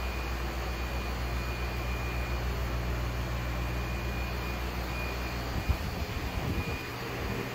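A steady low mechanical hum with an even hiss and a faint high whine, like running room equipment. A few low thumps come about five and a half to seven seconds in.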